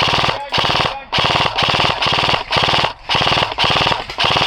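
Airsoft electric gun firing full-auto in a rapid string of short bursts, about one every half second, each a fast buzzing rattle of shots.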